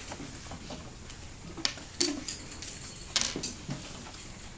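Classroom background noise with a few brief clicks and knocks, about two seconds in and again about three seconds in.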